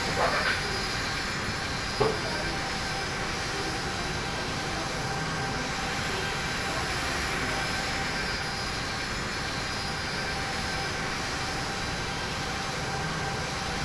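Airplane engine noise: a steady, even rush with a few faint steady tones underneath, and a short knock about two seconds in.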